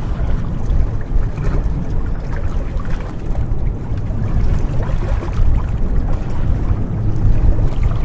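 Small waves lapping and splashing against shoreline rocks in irregular washes, over a steady low rumble.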